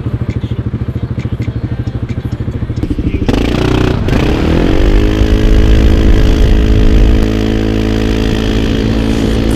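Quad (ATV) engine running at low revs with a fast, even chugging pulse; about three seconds in it revs up, the pitch climbing and then holding steady and louder as the quad pulls away and cruises.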